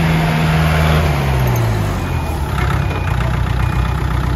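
Kubota L1-26 tractor's diesel engine running, its pitch dropping about a second in as it is throttled back, then settling to a steady idle.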